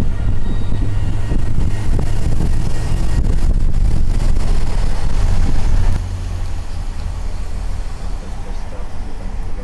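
Loud, steady low rumble of wind and road noise in a moving car, the air buffeting the microphone. The rumble drops noticeably about six seconds in.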